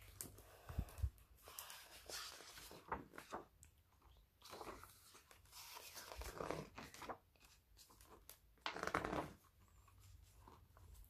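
Faint rustling and crinkling of paper as a picture book is handled and its pages turned, with a couple of soft thumps about a second in and a louder rustle near the end.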